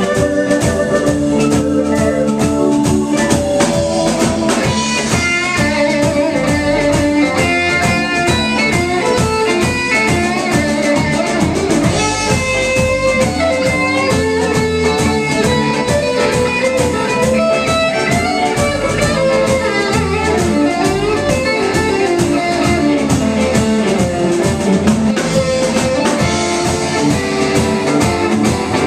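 Live blues-rock band in an instrumental break, with no vocals: electric guitar playing a busy lead line of quick notes over a steady drum kit and bass beat.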